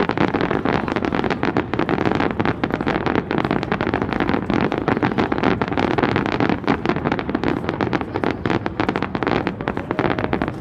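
Aerial fireworks barrage: a dense, rapid crackle and popping of many shells bursting at once, with no break.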